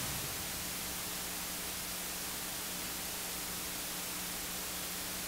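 Steady hiss with a faint low hum underneath: room tone and microphone noise, with no other sound.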